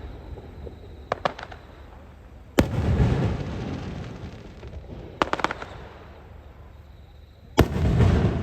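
Aerial firework shells bursting: two sharp loud booms, each followed by a long rolling rumble, with quick clusters of crackling pops between them.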